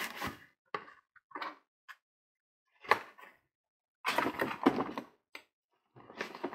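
A cardboard gift box being closed and handled with a paper gift bag: rustling, scraping and light knocks in several short bursts, with a sharp click about three seconds in and the thickest rustling from about four to five seconds.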